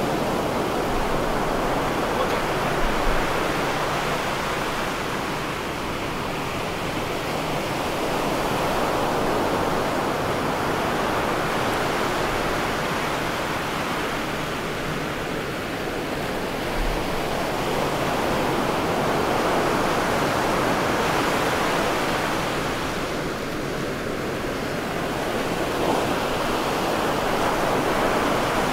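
Ocean surf breaking on a sandy beach: a steady rushing wash that swells and eases every eight to ten seconds as the waves come in.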